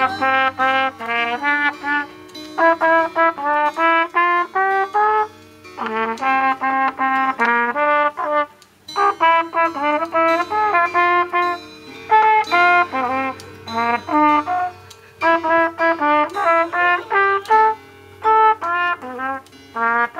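Trumpet playing a melody of separate notes in short phrases, with a few brief pauses between phrases.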